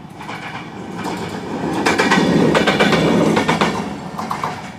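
Diesel locomotive passing close by, its engine rumbling and its wheels clacking over the rail joints. It grows louder to a peak about two seconds in, then fades after about three and a half seconds.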